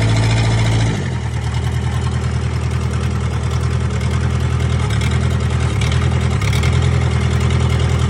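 4-cylinder diesel engine of a 1998 Gehl 4625 skid steer running on its freshly rebuilt fuel injection pump, with an even pulsing beat. About a second in its speed drops to a lower idle, and the idle wavers briefly a little past the middle.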